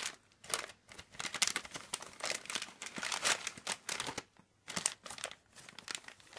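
Crinkly gift wrapping crumpling and rustling in quick irregular bursts as a cat paws and bites at it, with brief pauses near the start and about four seconds in.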